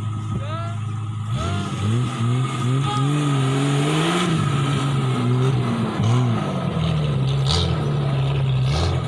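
Off-road vehicle's engine revving, its pitch rising and falling repeatedly under throttle, after a steady low running note in the first second or so.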